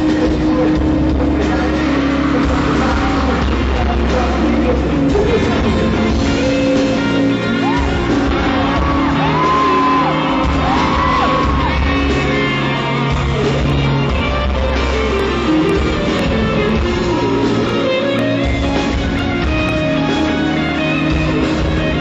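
Live rock band music with guitar and singing, loud and steady.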